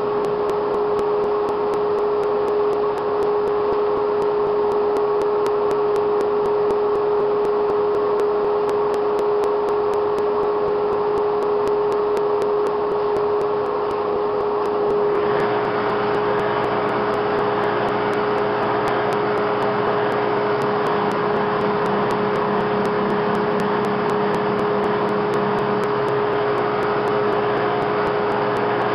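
ShopSmith-powered drum thickness sander running with a steady hum. About halfway through, the sound turns harsher and brighter as a board is fed under the sanding drum.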